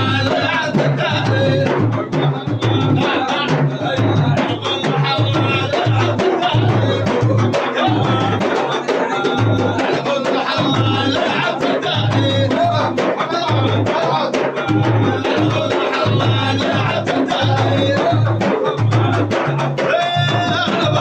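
Drums beating a steady pulse of about two strokes a second, with voices chanting along, in a Sudanese Sufi devotional song.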